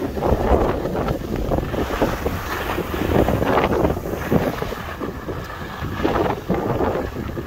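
Wind buffeting the microphone of a camera moving fast downhill on skis, a loud, uneven rush, with skis scraping over the snow in short surges.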